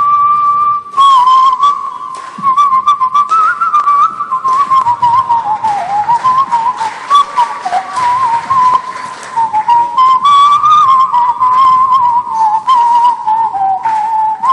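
A person whistling into a microphone: one pure note held steady, then breaking about a second in into quick warbles, trills and wavering slides that drift slowly lower. Sharp clicks run throughout.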